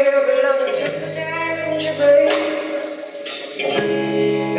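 Live band playing with electric guitars, bass and drums, with sustained chords and bass notes, a few cymbal splashes, and a woman singing at the microphone.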